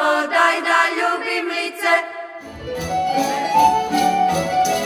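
A group of women singing traditional two-part folk song, pjevanje na bas, in held notes. About halfway through it gives way to instrumental music with a deep bass line.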